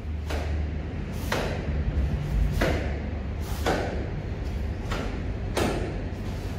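Sharp snaps and thuds from a young taekwondo athlete's strikes and stances during a poomsae form: the uniform cracking and feet landing on the foam mat, about one a second.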